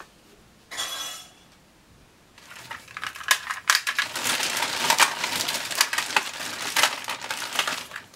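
Plastic cassette tapes clicking and clattering against each other as hands handle them. A short rattling burst about a second in, then a dense run of clicks and clatter from about two and a half seconds on.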